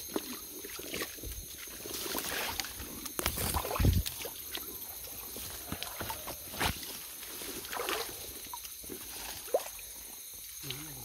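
Night insects trilling steadily, with water sloshing, scattered knocks and a dull thump about four seconds in.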